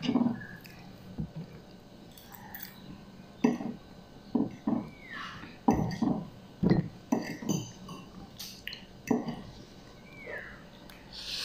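A fork clinking and scraping on a plate while lifting instant noodles, with a string of short chewing and slurping sounds of the noodles being eaten, most of them in the middle few seconds.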